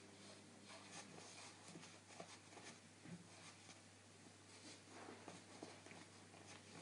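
Near silence: room tone with a low steady hum and faint, scattered rustles and clicks.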